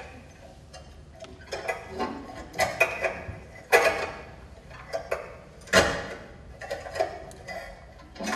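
Irregular knocks and clacks of objects handled on a table, some with a short ring; the loudest come about four and six seconds in.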